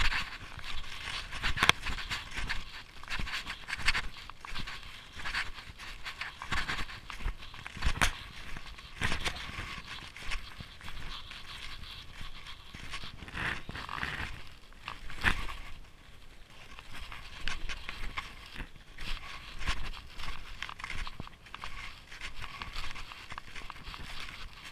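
Snowshoes crunching and scraping in snow with each step, with hard breathing close to the microphone.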